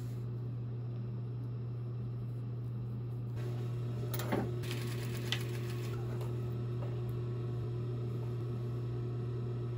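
Steady low electrical hum, with light fabric and handling rustle at an industrial sewing machine, a sharp knock about four seconds in and a small click about a second later. The machine is not stitching.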